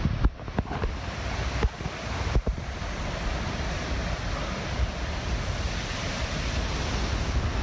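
Strong gusty wind from a thunderstorm's gust front, rushing and buffeting the microphone with a heavy low rumble. There are a few brief dips in the first two and a half seconds, then a steady rush.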